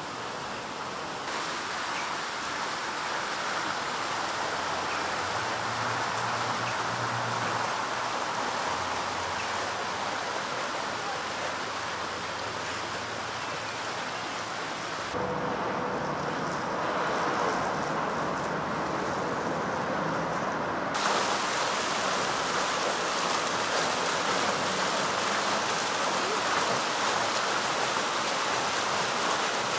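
Steady rushing outdoor noise with no clear single source. Its tone changes abruptly a little past one second in, again about fifteen seconds in, and again about twenty-one seconds in.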